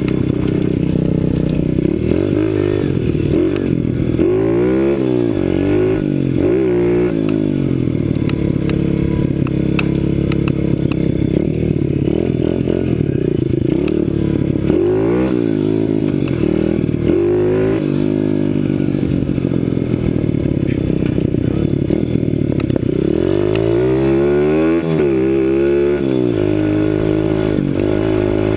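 CRZ 125 Pro pit bike engine being ridden hard, its pitch climbing and dropping again and again as the rider works the throttle and the gears.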